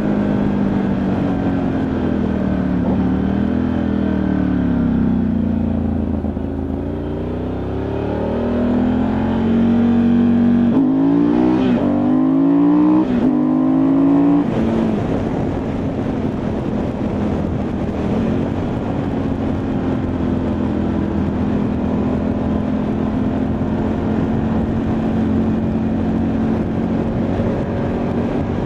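Ducati Multistrada 1100S's air-cooled L-twin engine pulling the bike along, its pitch dipping and rising with the throttle, then climbing in several quick rising revs a little before halfway before settling to a steady cruise. A rushing noise from the wind runs under the engine.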